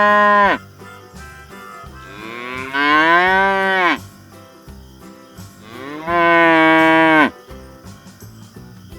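Cow mooing: one moo ends just after the start, then two long moos follow, each rising and then falling in pitch.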